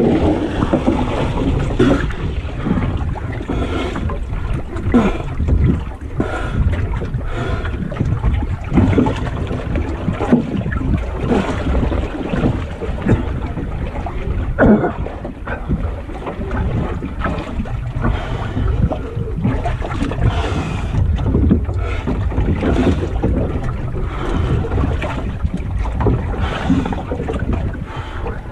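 Strong wind buffeting the microphone in a steady low rumble, with irregular splashes and slaps of choppy water against a small wooden sailing boat.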